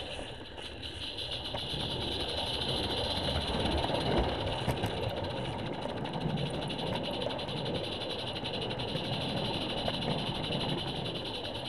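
Gas-fired Roundhouse Karen 0-4-2 live-steam garden-railway locomotive under way, heard from just in front of it: a steady hiss over a low rumbling running noise.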